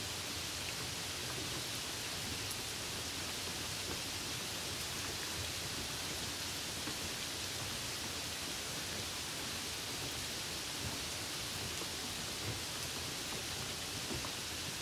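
Steady rain: an even, unbroken hiss of falling rain with no change in strength.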